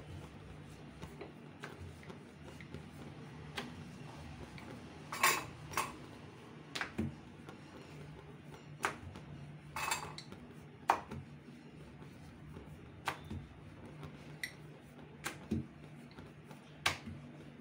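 Wooden rolling pin rolling paratha dough on a granite countertop, with irregular knocks and clicks of the pin against the stone.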